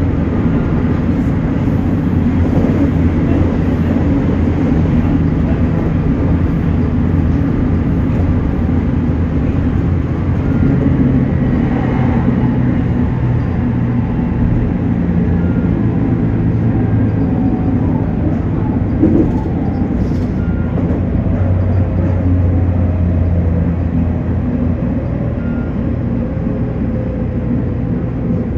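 JR Kyushu 813 series electric multiple unit running along the line: a steady rumble of wheels on rail with motor hum, heard from inside the train.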